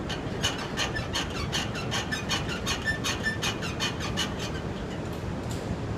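Footsteps on a slatted playground bridge: a quick run of clicks and clacks, about four or five a second, that thins out after about four seconds, over a steady low rumble.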